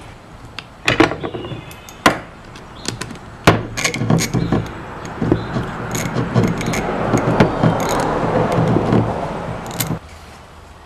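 Socket ratchet clicking as the two screws that hold a brake caliper on are run in. A few sharp metal knocks come first, then a long stretch of rapid ratcheting that stops suddenly near the end.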